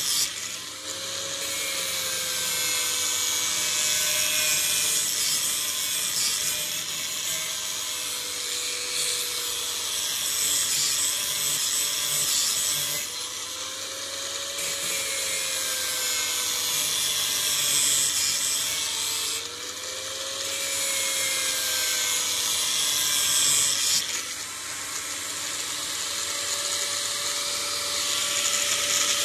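Knife blade ground against an electric grinder's spinning wheel: a steady high grinding hiss of steel on the wheel with the motor's whine underneath, its pitch sagging and recovering as the blade is pressed on. The grind changes every few seconds as the blade is passed over the wheel in several strokes.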